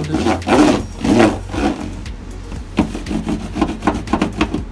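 Hand seam roller pressed and rolled back and forth over foil-faced butyl sound-deadening mat, a scraping, crinkling rub: a few long strokes, then quick short strokes of about five a second.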